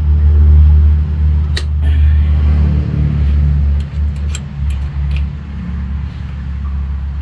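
An engine running with a steady low rumble that swells and dips slightly, with a few short, sharp clicks over it.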